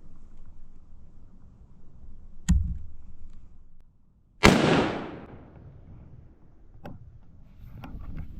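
A single hunting-rifle shot about four and a half seconds in, its report trailing off for over a second. A sharp knock comes about two seconds before it, and a lighter click comes after.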